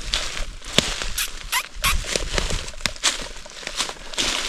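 Irregular snapping and rustling of twigs, branches and leaf litter as someone moves and handles branches in forest undergrowth.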